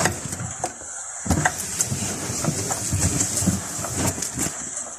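Cloth wiping the inside of an empty kitchen cupboard shelf: irregular rubbing with light knocks and clicks, over a steady hiss.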